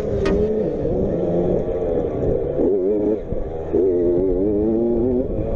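Small motocross bike engine revving, its pitch rising and falling with the throttle, with a brief drop and pick-up about three seconds in.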